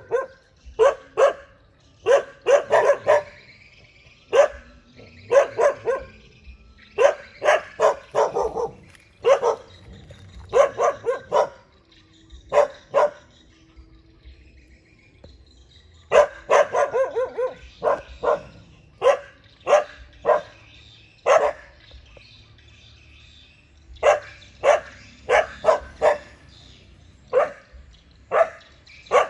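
Dogs barking repeatedly in volleys of short, sharp barks, with a pause of a few seconds about halfway through and another shorter one later. It is territorial warning barking at strangers, guarding their home.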